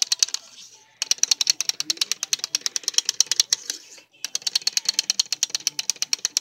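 Small plastic wind-up toy squirrel's clockwork running: a rapid, even clicking of about ten clicks a second. It stops twice briefly, just after the start and about four seconds in, then resumes.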